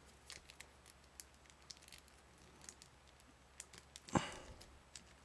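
Faint small clicks and ticks of fingers handling a plastic action figure and its thin rubber bands, with one louder thump about four seconds in.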